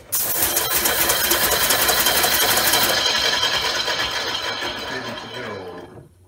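Home-built compressed-air motor running on a test rig: a rapid clatter of air pulses with hiss as its two cylinders drive the rotor round the oval ring. It dies away over the last second as the rotor coasts to a stop.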